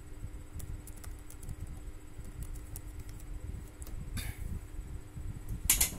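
Computer keyboard being typed on, a scatter of light, faint key clicks over a low steady hum, as a web address is entered and submitted. A short hiss comes about four seconds in and a louder one just before the end.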